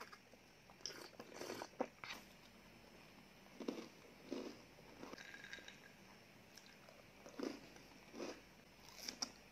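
Close-miked eating sounds: swallows of a yogurt drink and chewing of a chocolate sandwich cookie, heard as a scattering of short, soft mouth noises.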